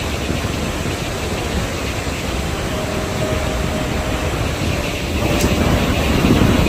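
Steady wind noise rumbling on the microphone outdoors, with no clear events in it.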